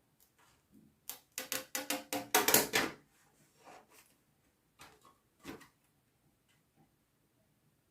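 Hands working with craft tools and materials on a worktable: a quick run of short scrapes and clicks starting about a second in and lasting some two seconds, then two more short knocks near the middle.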